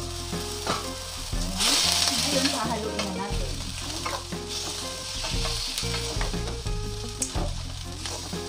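Pork pieces frying in oil with garlic and onion in a nonstick pan, sizzling as they are stirred with a ladle. The sizzle swells loudest about two seconds in, with a few light knocks of the ladle against the pan.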